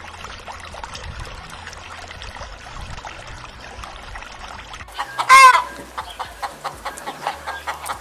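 Chickens: a stretch of quiet yard background, then one loud, short squawk about five seconds in, followed by a run of quick clucks repeating a few times a second.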